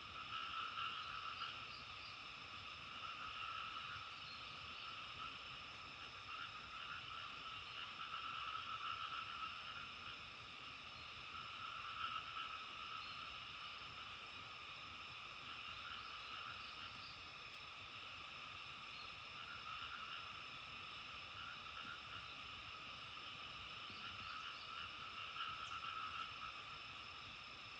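A chorus of many frogs calling together, continuous and swelling and fading in waves every few seconds.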